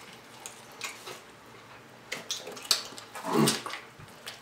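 Close-miked eating of fried chicken wings: irregular crunching and wet chewing and lip-smacking, with one louder mouth sound about three seconds in.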